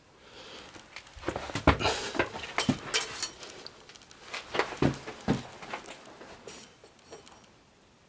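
Footsteps and scuffs on a dry, gritty cave floor: irregular knocks and crunches, a few with a dull thud, that thin out near the end.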